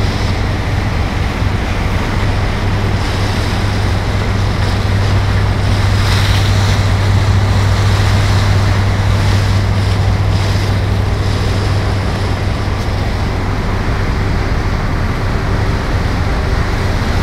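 Choppy sea waves washing and breaking around a boat, over the boat's steady low engine drone, with wind buffeting the microphone.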